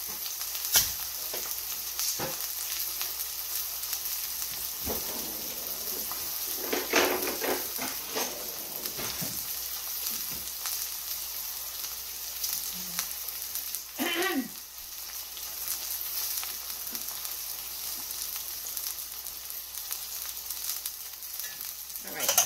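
Rib steak searing in a hot cast iron skillet greased with rendered beef fat, sizzling steadily. A few brief knocks come through the sizzle, the sharpest about a second in and just before the end.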